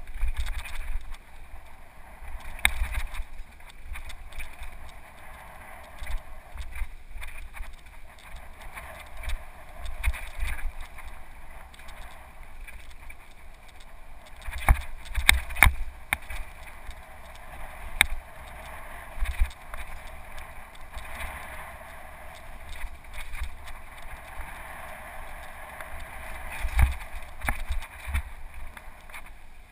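Mountain bike rolling fast down a dirt singletrack, heard from a helmet-mounted camera: a steady rush of wind and tyre rumble, with several sharp knocks and rattles from bumps and dips, clustered about halfway through and again near the end.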